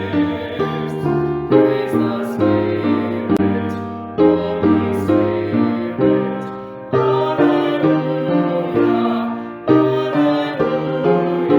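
Solo piano playing a slow hymn-style piece as offertory music, chords struck and left to die away one after another.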